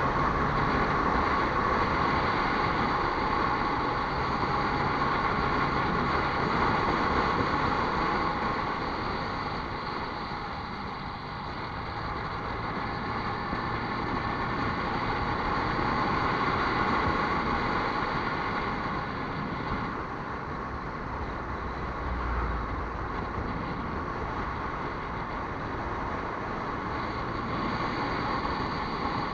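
A vehicle under way: steady engine and road or wind noise that swell and ease gently in level over the seconds.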